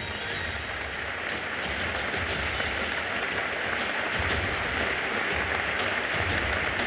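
Audience applauding, building up over the first couple of seconds and then holding steady.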